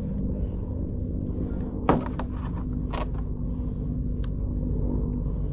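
Handling noises from unhooking a small fish that has swallowed the hook: a few sharp clicks and knocks, the loudest about two seconds in, over a steady low rumble.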